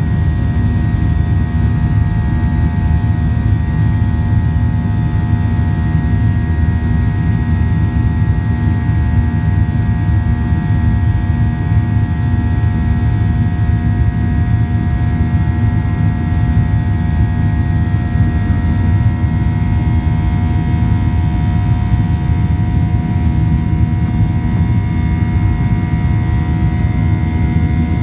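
Boeing 737 jet engines at climb thrust heard inside the cabin just after takeoff: a steady loud drone with a thin high whine, whose pitch shifts slightly about two-thirds of the way through.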